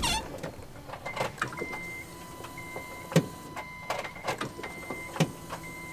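Electronic beeping: a short high beep repeating about once a second, over a faint steady tone, with a few light clicks and knocks.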